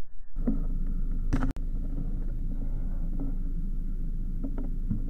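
Steady outdoor wind rumble on the microphone, with a single sharp crack about a second and a half in.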